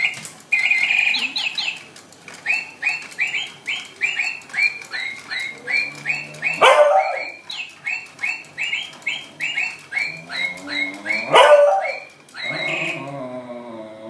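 Battery-powered toy parrot chirping over and over, about two to three short electronic chirps a second, while a beagle answers it with two short barks and then a low, wavering whine near the end.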